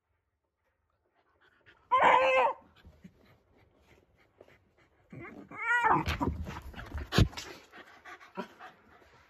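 Shiba Inu giving two loud, high yelping barks about three seconds apart, frustrated at a plastic bottle cap out of reach under the sofa, with scratching and knocking as it paws at the sofa and a sharp knock near the middle.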